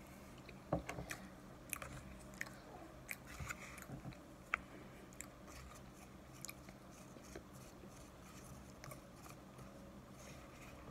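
Crunchy chewing of a mouthful of raw cornstarch, with short clicks and scrapes of a spoon working in a plastic tub. The clicks come thickest in the first few seconds and thin out after.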